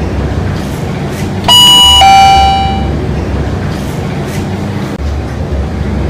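Elevator arrival bell sounding once as a two-tone ding-dong, about a second and a half in: a high tone, then a lower tone that rings out for about a second. A steady low hum runs underneath.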